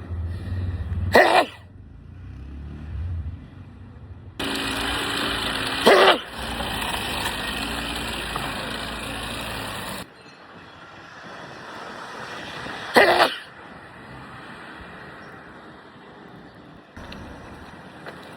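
Three loud sneezes from a person, each sudden and short, about a second, six seconds and thirteen seconds in, over steady background noise that changes abruptly between them.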